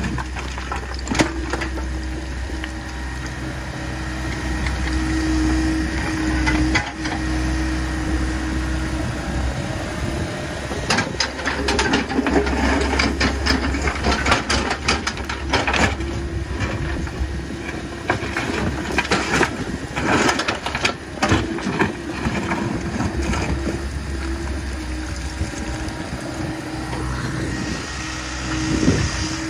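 Hitachi 85 mini excavator's diesel engine running steadily under hydraulic load while its steel bucket digs through rock, scraping and knocking against stone, with a dense run of sharp knocks in the middle.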